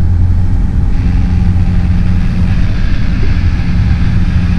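Light aircraft's piston engine and propeller running steadily in flight, a loud, even low drone.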